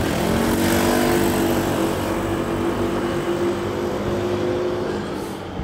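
A car driving past close by on the road, its engine note dipping slightly as it passes and then holding steady, over tyre and traffic noise.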